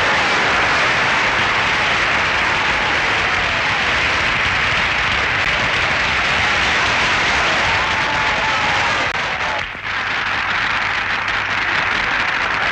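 A large audience applauding, dense and steady, with a brief dip in loudness a few seconds before the end.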